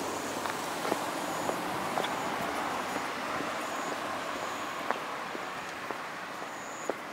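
A car passing along the street, its tyre and road noise swelling over the first few seconds and then easing off, with sharp footstep clicks from someone walking on pavement.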